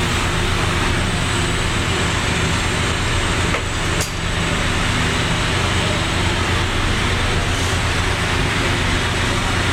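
TIG welding arc running on a 2-inch steel pipe during the hot pass: a steady buzz and hiss over the welding machine's low hum, with a brief dip and a click about four seconds in.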